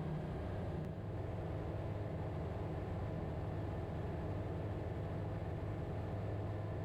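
Comco Ikarus C42B ultralight aircraft in cruise flight: a steady, even engine and propeller drone heard from inside the cockpit.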